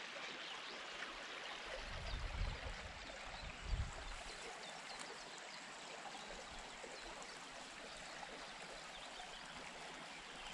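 Faint, steady sound of creek water flowing, with two brief low rumbles about two seconds and four seconds in.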